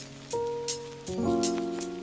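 Mellow lofi background music: soft sustained chords that change about a third of a second in and again about a second in, over light ticking percussion about three or four times a second.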